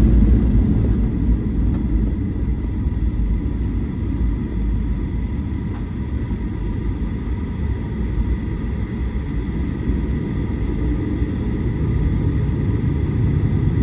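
Cabin sound of a Boeing 737-800 rolling out after landing: a steady low rumble of wheels and CFM56 engines with faint steady engine tones. The rumble eases over the first few seconds and grows a little again near the end.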